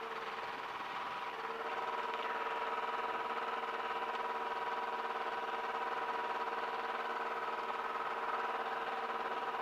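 Light experimental aircraft engine idling steadily, heard as an even hum with several steady tones through the cockpit intercom recording; it grows slightly louder about a second and a half in.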